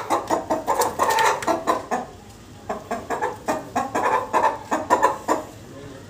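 Aseel chickens clucking in a rapid run of short calls, several a second, breaking off briefly about two seconds in and then going on again before fading near the end.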